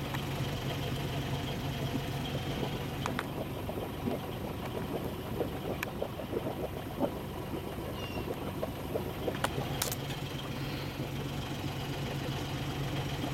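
Sailboat's inboard auxiliary engine running steadily under way, a constant low hum, with a few sharp clicks and knocks on board.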